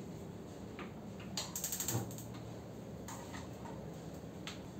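Gas stove burner's igniter clicking rapidly, about eight clicks in half a second, then the burner catches and its flame runs with a low steady hum. A couple of light knocks follow.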